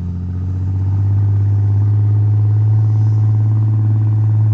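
Jeep engine running at a steady speed while towing a snow tube. It grows a little louder over the first second, then holds an even drone.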